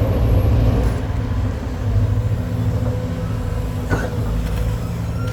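Four-cylinder diesel engines of hydraulic excavators running steadily, a low rumble with a steady hum above it and a single knock about four seconds in.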